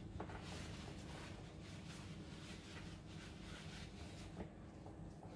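Faint room tone: a steady low hum with light scratching and rustling over it.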